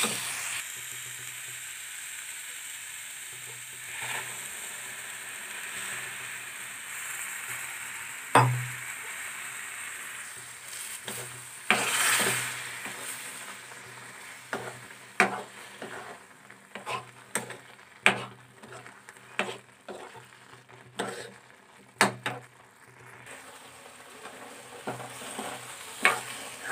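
Grated carrots and melting sugar sizzling in a metal pan as gajar ka halwa cooks, with a steel ladle scraping and knocking against the pan as it is stirred. A steady sizzle fills the first ten seconds or so, then gives way to frequent scrapes and clicks of the ladle.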